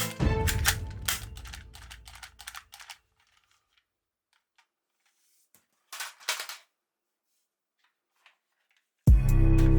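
Background music fades out over the first three seconds into a low, dying rumble. After a pause, a quick cluster of sharp mechanical clicks comes just past the middle, then a single faint click. Loud music comes back in near the end.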